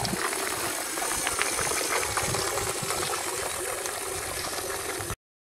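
Water churning and splashing in the wake of a small homemade RC boat's propeller as it speeds across the water, a steady noisy rush. It cuts off suddenly about five seconds in.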